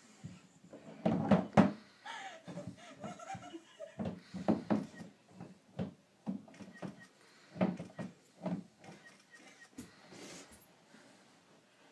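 Plastic toy box with a hinged lid knocking and thumping irregularly as someone shifts around inside it and pushes the lid up, with scattered bumps of plastic on plastic.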